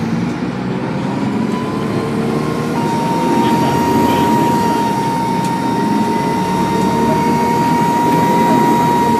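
Dennis Trident II double-decker bus engine pulling hard, with a loud high turbo whine that climbs a little in the first few seconds and then holds steady over the engine's low running.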